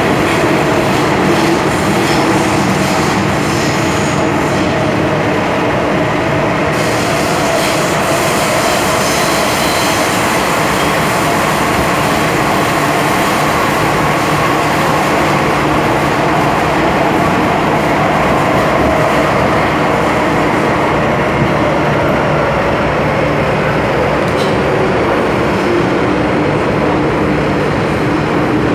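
MTR M-Train electric metro train running underground, heard from inside the carriage beside the doors: a loud, steady rumble of wheels on rail with faint steady tones beneath it.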